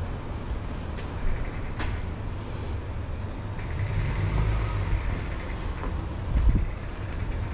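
Road traffic noise heard from a moving bicycle, with wind rumbling on the microphone; the traffic swells about four seconds in.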